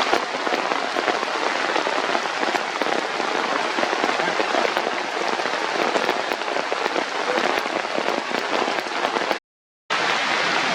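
Steady, dense hiss of noise with a fine crackle, like rain. It cuts out to silence for about half a second near the end, then resumes.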